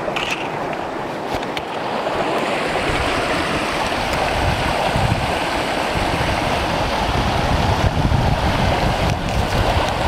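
Small mountain creek rushing steadily over rocks, with a deeper rumble building from about two seconds in. A couple of faint crunching steps in snow in the first two seconds.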